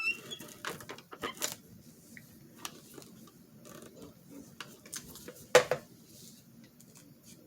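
Craft materials being handled on a tabletop: scattered light taps and clicks, with one sharper knock about five and a half seconds in.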